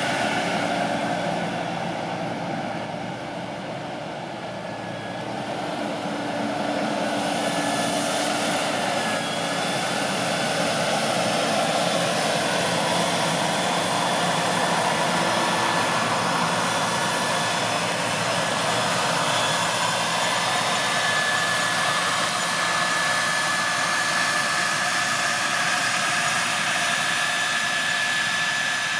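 Fendt 818 Vario tractor's six-cylinder diesel engine running steadily while pulling a precision seed drill through the field, briefly quieter a few seconds in. A steady high whine runs along with it in the second half.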